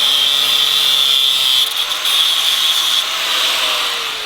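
Electric grinder grinding metal, a steady hissing rasp, most likely taking the zinc plating off a galvanised washer so it will weld cleanly. Near the end the grinder's motor begins to wind down.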